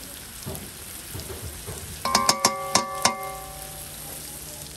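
Curry frying and sizzling in a large metal karahi over a wood fire. About halfway through, a metal spoon raps the pan about five times in quick succession, and the pan rings for a moment after.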